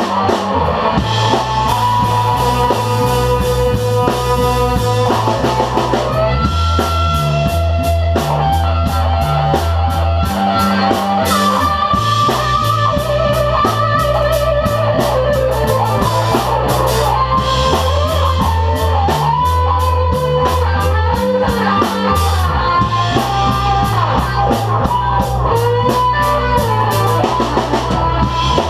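Live band jam: electric guitar playing held, sustained lines over a low line shifting from note to note, with a drum kit keeping a steady beat that comes in fully about six seconds in.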